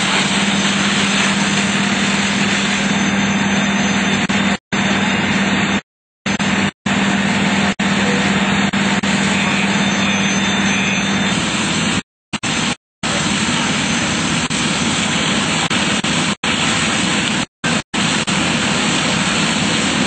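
Steady, loud running of fire apparatus at a working fire: an engine at pumping speed with a steady hum that stops about halfway through, over the rush of hose streams. The sound is cut by several short dropouts.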